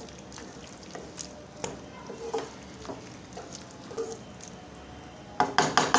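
Spatula stirring a thick, wet curry in a nonstick kadai, with soft squishy mixing and light scrapes on the pan. Near the end come a few quick, louder strokes of the spatula against the pan.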